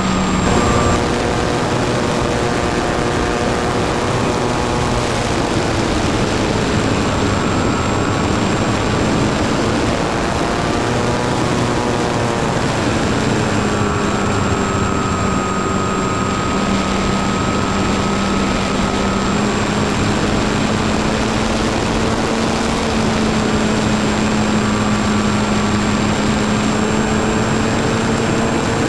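Model aircraft's motor and propeller running steadily, heard from an onboard camera with wind rush. The pitch drifts slightly up and down with the throttle.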